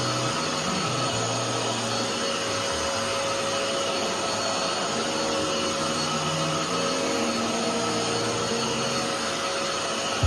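JONR H2 Pro wet-dry floor cleaner running steadily: a constant motor hum and whine with a rushing hiss. Background music plays underneath.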